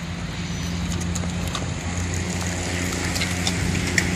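Roadside noise with a steady low hum and scattered light clicks, slowly getting louder as a line of racing bicycles comes up and passes.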